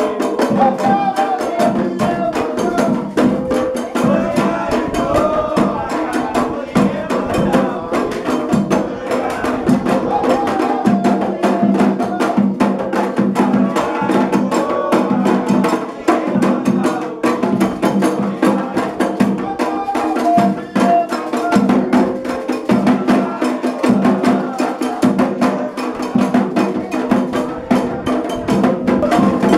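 Afro-Brazilian ritual music: hand drums and a struck wood-block-like percussion pattern keep a steady beat while voices sing a song for the orixá Iemanjá.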